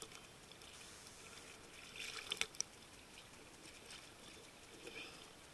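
Faint sea water lapping and splashing at the surface against a camera held at water level, with a few sharper splashes about two seconds in.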